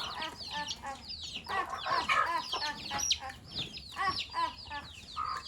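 Chickens clucking and calling: many short overlapping calls, some falling quickly in pitch, keep coming one after another.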